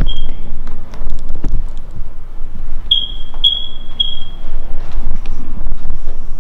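Four short, high electronic beeps at one pitch: one just after the start, then three about half a second apart around three seconds in. Under them runs a loud low rumble of camera-handling noise with scattered knocks.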